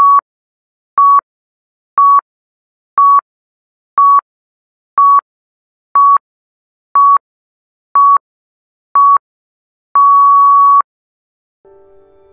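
Electronic countdown timer beeping: ten short, high beeps one second apart, then a single longer beep that signals the end of the countdown and the start of the work session. Soft music fades in just before the end.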